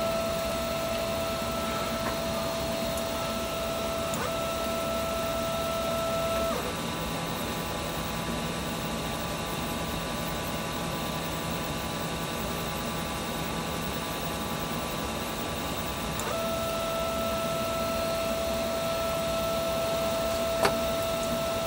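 Steady high-pitched whine from a DIY CoreXY 3D printer's stepper motors and drivers. The tone changes to a different, multi-toned hum about six seconds in and goes back to the first tone about sixteen seconds in. There is one sharp click near the end.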